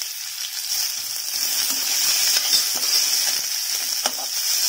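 Chopped onions sizzling in hot oil in a kadai as they start to sauté, stirred with a metal slotted spoon that makes small scraping ticks against the pan. The steady, high frying hiss runs throughout.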